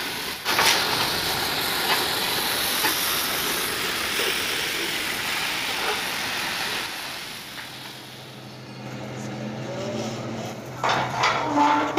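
Gas cutting torch hissing steadily as its flame cuts through thick steel plate, the hiss fading about eight seconds in. Near the end come a few sharp metal knocks.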